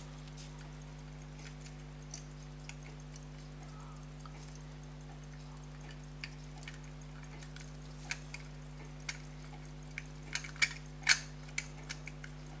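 Irregular small metallic clicks and taps from a silver pocket watch case being handled, sparse at first and louder and closer together near the end, over a steady low hum.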